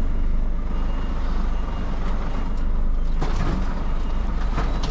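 Heavy truck engine running steadily, with a faint high beeping in the first half and several knocks and rattles in the second half.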